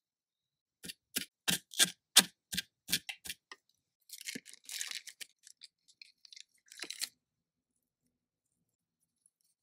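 Small kitchen utensils handled in miniature food preparation: a run of about nine sharp taps, about three a second, then a second or so of scraping and rustling and a few scattered ticks.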